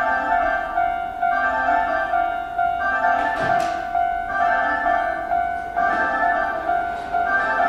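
Station platform loudspeaker playing a train-approach melody: a repeating phrase of clear, bell-like notes that announces a train is coming.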